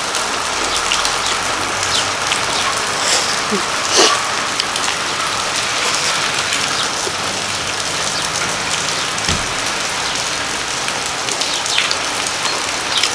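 Steady rain falling, with one brief sharp click about four seconds in.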